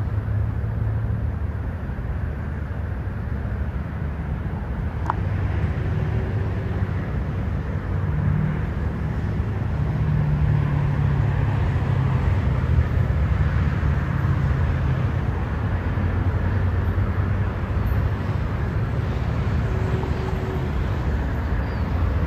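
Steady low vehicle rumble with a deep hum that swells for a while in the middle.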